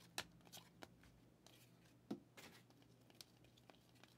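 Faint, irregular clicks and snaps of glossy trading cards being flicked through by hand, one card sliding off the next, a slightly sharper snap about two seconds in.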